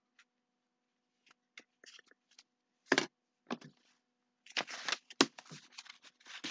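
Scattered clicks and rustling handling noises heard over a video-call line, with a louder knock about halfway through and denser rustling near the end, over a faint steady hum.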